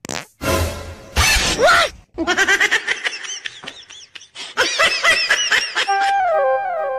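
Edited-in comedy sound effects and music: a few noisy effect bursts, then a sped-up, cartoonish laughing effect of quick rising-and-falling calls, ending in a stepped descending musical run.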